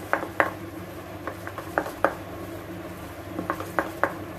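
A steel spoon stirring a thick moong dal and gram flour batter in a steel bowl, giving irregular clicks and scrapes of metal on metal.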